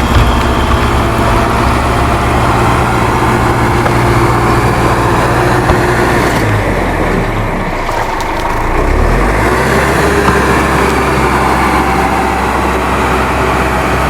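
A heavy truck engine running steadily, with a brief dip and a shift in pitch about halfway through.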